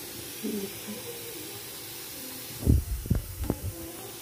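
Steady hissing from a kadhai of curry simmering on the stove. About two-thirds of the way in come a few dull knocks.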